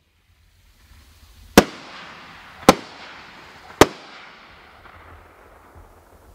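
Triple-break artillery shell from a fireworks cake bursting in the air: three loud bangs about a second apart, each followed by a noisy tail that fades out.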